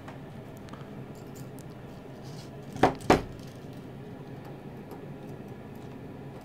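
Two sharp knocks in quick succession about three seconds in, over a steady low hum, with a few faint light ticks before them.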